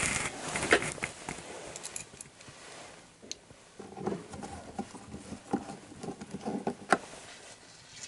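Small clicks, taps and rustles of hands setting screws into a plastic socket panel on a wooden cabinet, with one sharper click near the end.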